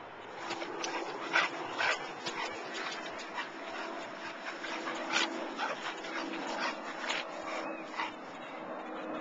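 Dogue de Bordeaux (French Mastiff) whimpering: a steady thin whine broken by many short sharp sounds over the first eight seconds or so.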